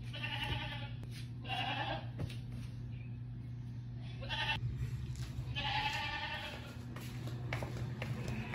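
An animal calling four times, each call under a second, over a steady low hum.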